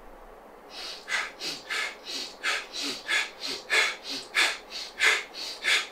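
A man breathing fast and hard, in through the nose and quickly out, starting about a second in. It is a rapid series of rushes of air, about three a second, as the in and out breaths alternate: the hyperventilation round of a Wim Hof-style breathing exercise.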